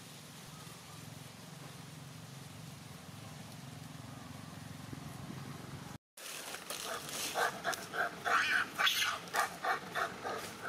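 A low steady hum, then, after a short break about six seconds in, a macaque giving a quick series of short pitched cries, about two to three a second.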